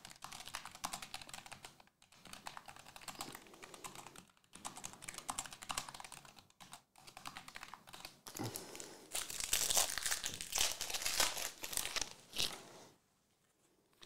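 Foil trading-card pack wrappers crinkling and rustling in the hands as packs are handled and opened, with a louder, denser stretch of crinkling from about nine to twelve seconds in.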